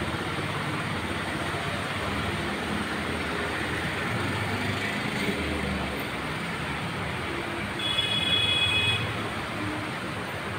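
Steady hiss of rain falling on a town street, with the low rumble of passing traffic. A vehicle horn beeps once for about a second near the end.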